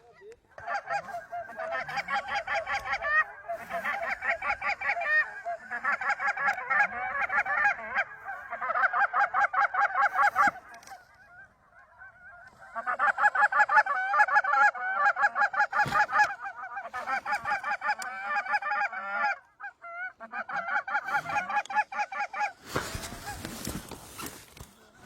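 Rapid, continuous Canada goose honking and clucking in long runs, with a pause of about two seconds near the middle and a short break later. The calls stop a couple of seconds before the end, and a brief rustle of noise follows.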